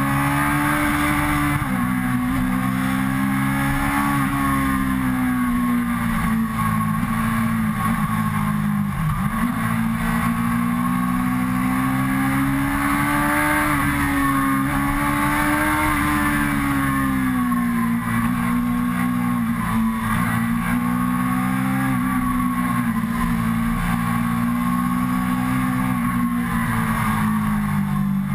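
Suzuki GSX-R sport bike's inline-four engine running on the road, its pitch rising and falling gently with the throttle and dropping sharply about two seconds in and again near nine seconds, with steady wind rush over the bike.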